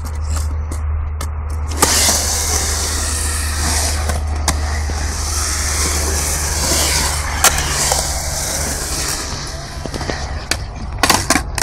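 Skateboard wheels rolling on a concrete bowl as a skater drops in and carves around it. The rolling rush starts with a sharp clack about two seconds in, carries a couple more clacks along the way, and fades about nine seconds in. A few more clacks come near the end, all over a low steady hum.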